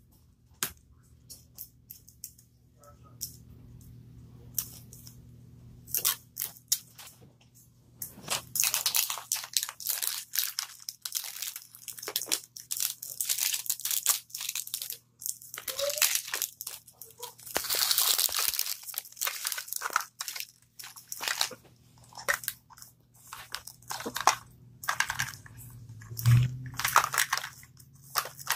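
Plastic wrapping being peeled, torn and crinkled off a Mini Brands capsule ball, in irregular crackly rustles with short pauses. A dull bump near the end.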